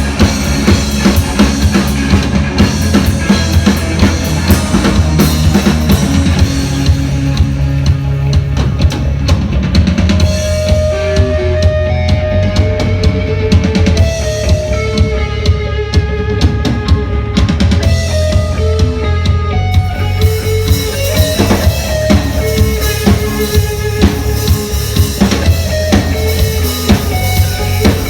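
A live band playing: a drum kit keeps a steady kick-and-snare beat over a heavy bass, and a melody of held notes comes in about ten seconds in.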